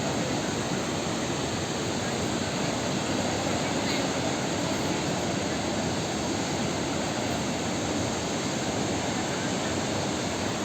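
Waterfall on a river, a constant, even rush of falling water.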